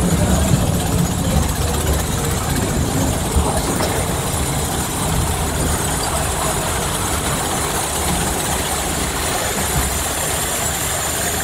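Steady low rumble and rushing hiss of a Splash Mountain log flume boat moving through a dark cave: flowing flume water and ride machinery, with no clear rhythm or single event.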